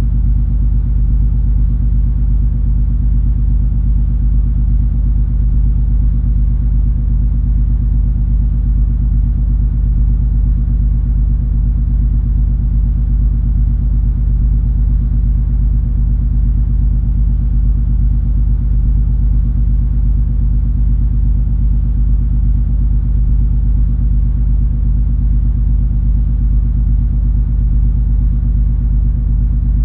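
Steady low drone of the cruise ferry MS Color Fantasy's engines and machinery under way, a constant hum made of several held low tones over a soft hiss, with no change in pitch or level.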